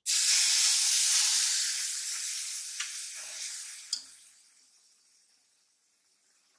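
Milk poured into a hot kadai of ghee-roasted semolina and sugar, hitting the pan with a sudden loud sizzle that dies away over about four seconds. A steel spoon clinks lightly against the pan as the sizzle fades.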